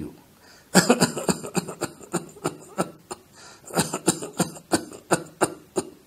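A man mimicking a rapid string of many short, weak coughs, made without a deep breath first, in two runs with a short pause about three seconds in. This is the pattern of cough typical of an irritant deep in the lungs, as in pulmonary fibrosis, pulmonary edema or pneumonia.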